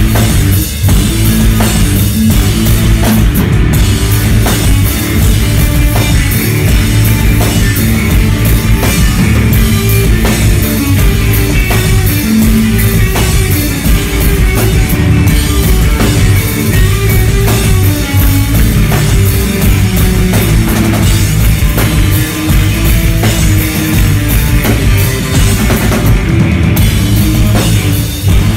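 Loud live rock music: a full drum kit pounding with cymbals over electric bass and electric guitar, playing without a break.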